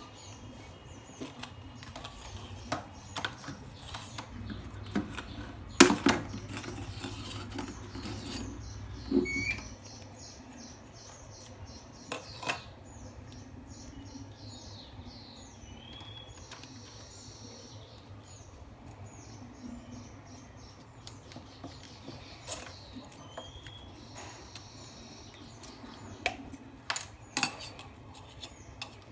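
Plastic and aluminium parts of a small tripod being handled as a broken leg clip is refitted with a rubber band: scattered light clicks and taps, with louder knocks about six and nine seconds in and a quick run of them near the end.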